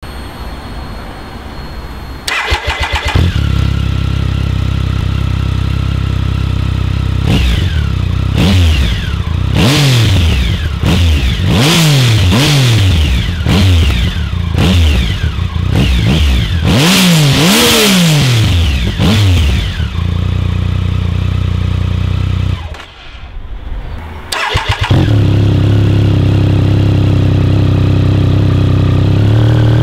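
2008 Triumph Speed Triple's 1050 cc three-cylinder engine started about two seconds in and idling, then revved in a quick series of about ten throttle blips before settling back to idle. Near 23 seconds the sound drops out briefly, then the engine idles steadily again.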